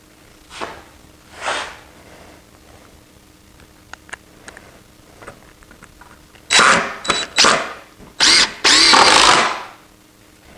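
Power drill driving large framing screws into wood in short bursts of running, with small clicks in between. The longest and loudest run comes near the end.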